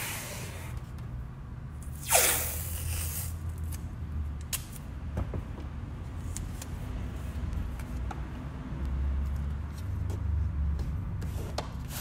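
Hands handling paper and painter's tape on a table: one loud rasping swish about two seconds in, then a few faint ticks. A steady low rumble runs underneath.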